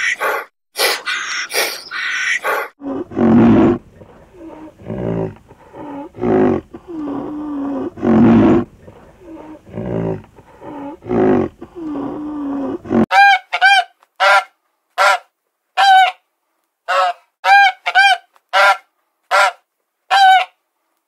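Swans honking: a run of short, clear honks, about a dozen in the last eight seconds, some in quick pairs. Before them come low, repeated grunting calls from rhinoceroses, and at the very start a few sharp, high-pitched calls.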